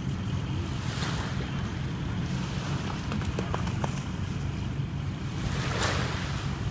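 Small waves washing onto a pebble beach, swelling about a second in and again near the end, over a steady low rumble of wind on the microphone.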